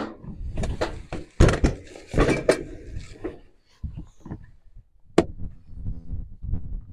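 Irregular knocks, thuds and clatter of gear being handled and moved around, with a single sharp click about five seconds in, followed by quieter rustling and shuffling.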